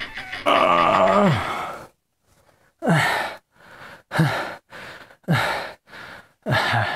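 A man sighing and grunting. One long sigh falls in pitch, then after a short pause come four short grunts, each dropping in pitch, about a second apart. It sounds like he is straining at a task that is not working.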